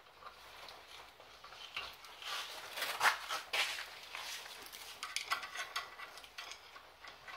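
Metal hand tools clinking and scraping against a car's front brake caliper and its hardware, in a string of sharp clicks and short scrapes, loudest about three seconds in.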